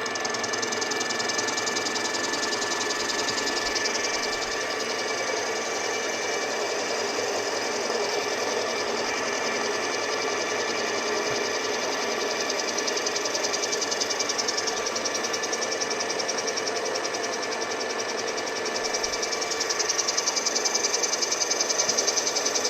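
Milling machine cutting a groove about 1 mm deep in a cast-iron table with a carbide-insert cutter: a steady cutting chatter over the spindle's running tones, a little louder near the end.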